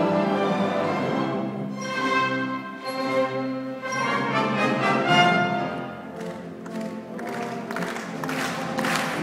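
Symphony orchestra with strings, brass and piano playing a full passage. Near the end audience applause starts and runs under the music.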